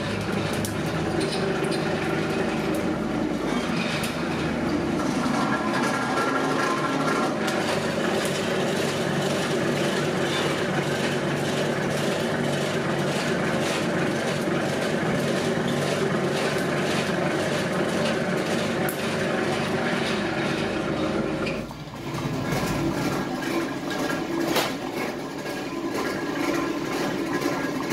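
Two-roll rubber mill running, its steel rollers and open gear drive making a steady, dense mechanical clatter as the gasket compound is worked between the rolls. The noise dips briefly a little past two-thirds of the way through, then the factory machinery carries on with a single sharper knock.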